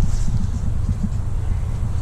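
Steady low rumbling noise of wind buffeting the microphone outdoors, with no distinct events.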